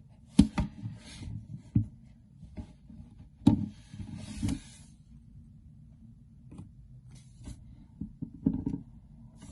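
Objects being handled: sharp knocks and clatters with brief scraping or rustling between them. They come in three clusters, the loudest near the start and about three and a half seconds in, and a smaller one near the end.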